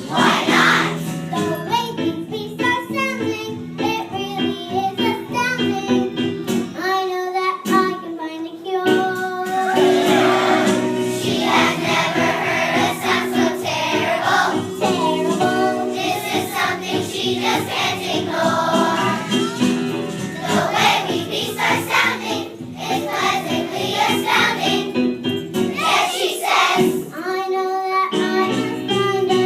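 Children's song with singing, including a child's voice, over steady instrumental accompaniment.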